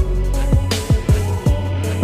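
Background electronic music with a heavy beat: deep kick drums that drop in pitch about three times a second over a sustained bass line.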